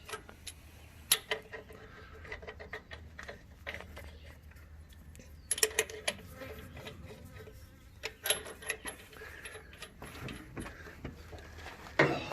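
Scattered metal clinks and rattles of lug nuts and hand tools as a trailer wheel's nuts are fitted back onto the studs, with louder clusters of clicks about halfway through and near the end.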